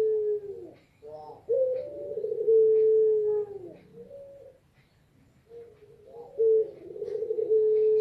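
Caged female puter pelung dove, a long-cooing variety of Barbary dove, cooing to call a male. Each coo is a few short notes run into one long, low note that trembles and then slides down at its end. The end of one coo comes first, then a full coo, then a gap of about a second before the next coo begins.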